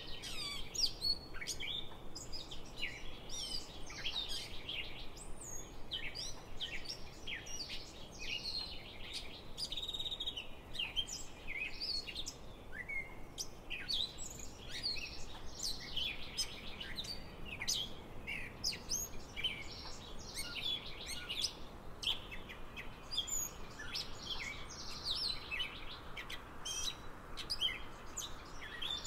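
Songbirds chirping and singing, many short, quick calls overlapping continuously, over a steady background hiss.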